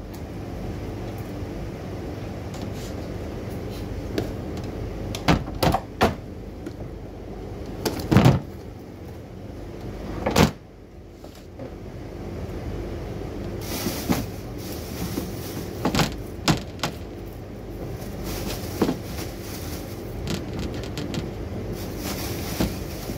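Kitchen counter work: scattered knocks and clatter as a wooden cutting board, a metal slicer and vegetables are handled and set down, two sharp knocks the loudest, over a steady low hum.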